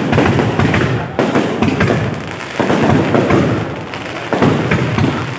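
Aerial fireworks bursting: four loud booms, each trailing off in a rumbling echo before the next.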